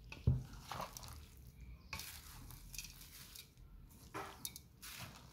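A wooden spoon stirring a dry filling of crushed crisps and chopped vegetables in a metal bowl: irregular scraping, rustling strokes, with a knock about a quarter-second in.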